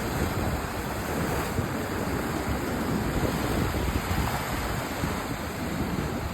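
Sea waves washing in as steady surf, with wind rumbling on the microphone.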